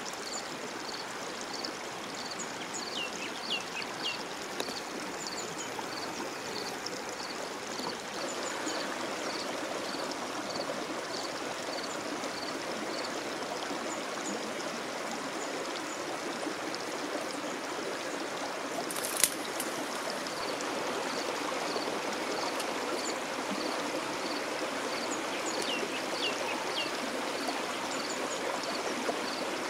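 Steady rush of running water, like a stream. Over it a high chirp repeats evenly about twice a second, a few short falling calls come near the start and near the end, and a single sharp click sounds about two-thirds of the way through.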